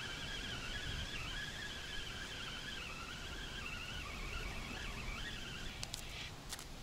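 Fishing reel being wound as a small hooked fish is brought in on a feeder rod: a continuous whir that wavers in pitch with the cranking speed, stopping about six seconds in, followed by a few sharp clicks.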